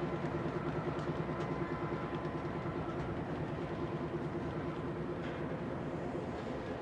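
Double-stack container freight train rolling past: diesel locomotives running with a steady drone and the wagons' wheels rumbling on the rails, at an even level with no rhythmic wheel clicks.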